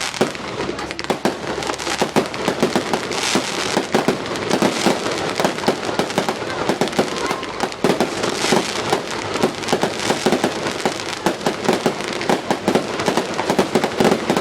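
Fireworks display going off in a dense, continuous barrage of rapid bangs and crackling, many bursts a second.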